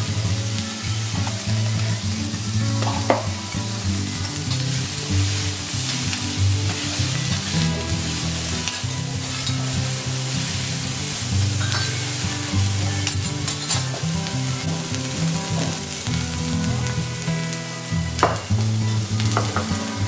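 Sliced onions, green peppers and garlic sizzling on a steel teppanyaki griddle as they are stirred and tossed with metal spatulas. Twice, a spatula clinks sharply against the griddle.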